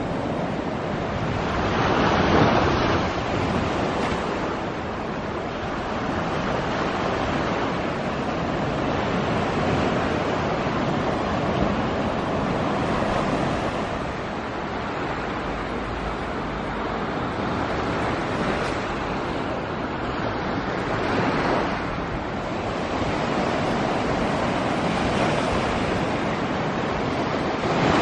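Ocean surf washing onto a sandy beach: a steady rushing hiss that swells now and then as waves break.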